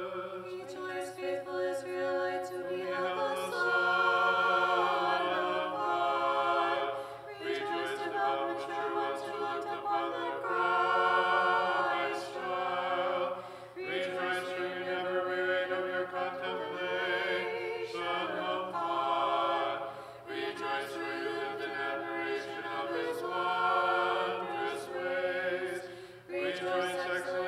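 Unaccompanied choir singing Orthodox liturgical chant, in long held phrases with brief pauses between them.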